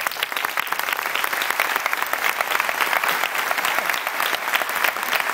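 An audience applauding: many hands clapping at once in a dense, steady patter.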